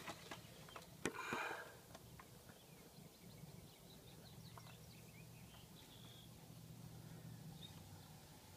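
Faint outdoor background, near silent, with a single knock and a short rustle about a second in, then a faint low hum and a few faint high chirps.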